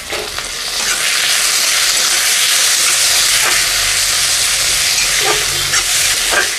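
Chopped tomato, onion and garlic sizzling in hot mustard oil in a kadai, getting louder about a second in. The mix is being stirred, with a few short scrapes.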